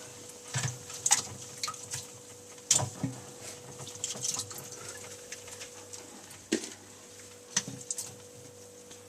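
Zanussi washing machine taking in water, a trickling splash with scattered clicks and knocks and a faint steady hum.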